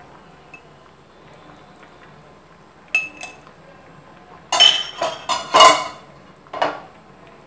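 Kitchen utensils clattering: a spoon clinks once about three seconds in, then knocks and rings several times in quick succession between about four and a half and six seconds, with one more clink shortly after.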